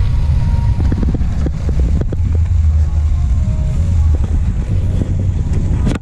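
Wind rumbling on the action camera's microphone as a mountain bike rolls along a dirt road, with frequent rattles and knocks from the bike jolting over the rough, sandy surface.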